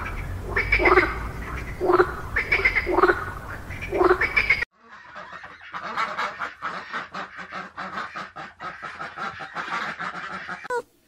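A frog calling: five calls about a second apart, each sweeping in pitch, over a low rumble. About four and a half seconds in, the sound cuts to a mallard hen's fast run of short quacks, about six a second, which stops just before the end.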